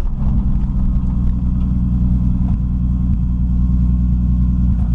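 Turbocharged Toyota 1JZ inline-six in a 1936 Morris 8 running steadily at low revs, heard from inside the cabin as an even, low rumble with no revving.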